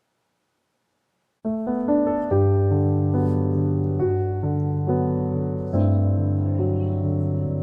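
Silence, then piano background music starts about a second and a half in, with notes changing every half second or so.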